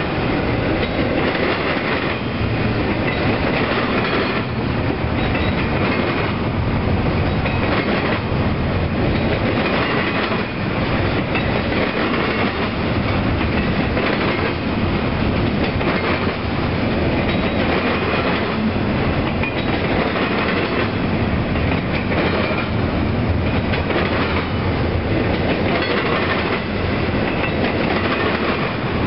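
Intermodal freight train cars rolling past: steady noise of steel wheels on the rails with a regular clickety-clack.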